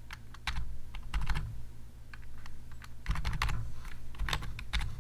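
Computer keyboard typing in short bursts of keystrokes, with a pause of over a second after the first burst, as a phone number is keyed in.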